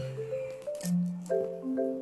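Background music: a light, bouncy melody of short, bright notes over a bass line, the notes changing a few times a second.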